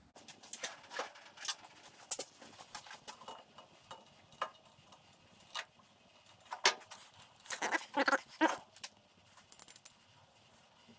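Hand tools clicking and snipping irregularly at the power cord's wire ends as small tags are cleaned off them, with a denser run of sharper clicks about three quarters of the way through.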